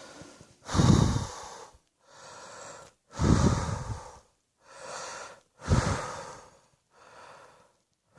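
A person coughing three times, about two and a half seconds apart. Each cough is loud and tails off over about a second, and a quieter drawn breath comes between coughs.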